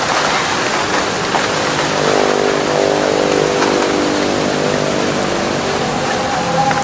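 Playback of a phone's voice-recorder audio captured while buried in the soil: a loud, even hiss like rushing water. From about two seconds in, a faint drawn-out tone rises out of the hiss for a couple of seconds, which the uploader likens to a person crying.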